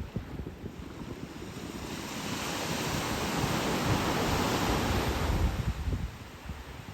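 Atlantic Ocean surf: one wave breaking and washing up the shore, swelling about two seconds in and fading near the end. Wind buffets the microphone underneath.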